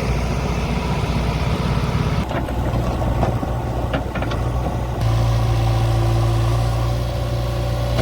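JCB backhoe loader's diesel engine running steadily, with a few faint clicks, and running louder from about five seconds in.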